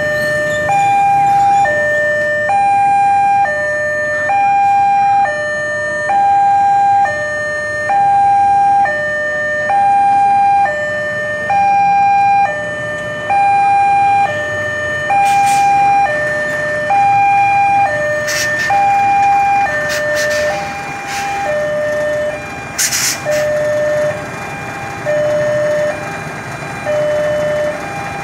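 Railway level-crossing warning alarm sounding a repeated hi-lo two-tone signal, a higher tone then a lower one, about one cycle every two seconds, warning of an approaching train as the barriers come down. The higher tone grows fainter after about twenty seconds, and road traffic with a few brief bursts of noise runs underneath.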